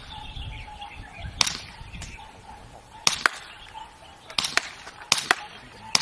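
Green-gas blowback airsoft pistol (Armorer Works VX7) firing four shots a second or so apart. The last three are each a quick double crack. Wind buffets the microphone underneath.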